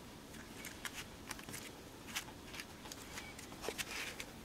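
Faint rustling and small scattered clicks of paper, card and paper-flower embellishments being handled and pressed into place on a layered handmade card.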